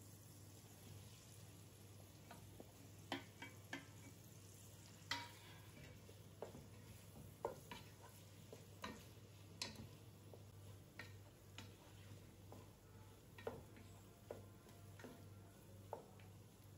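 Cooking spoon knocking and scraping against a nonstick pan while stirring diced sausage, the knocks coming irregularly about once a second from about three seconds in, over a faint frying sizzle.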